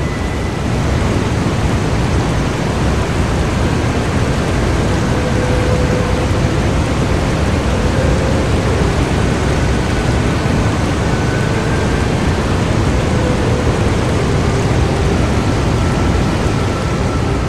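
Mountain waterfall: a loud, steady rush of water falling over rock and splashing into a pool below.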